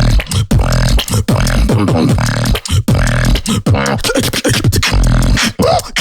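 Solo vocal beatboxing: a fast, dense rhythm of deep bass kicks, sharp mouth-made snares and clicks, and pitched vocal bass sweeps.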